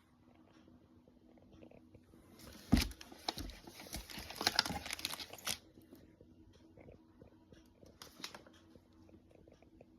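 Firework packaging being handled close by: rustling and crinkling of wrappers, with a sharp knock a little under three seconds in and a shorter rustle around eight seconds.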